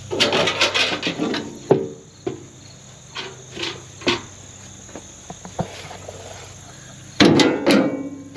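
Metal clattering and a few sharp knocks as the tractor's perforated side screen is handled, with a loud rattle at the start and another about seven seconds in. Insects chirp steadily in the background.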